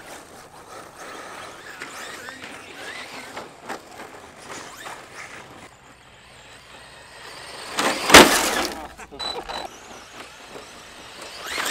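Electric RC cars racing across a dirt field at a distance, their running faint, then a loud rushing noise about eight seconds in that fades over about a second.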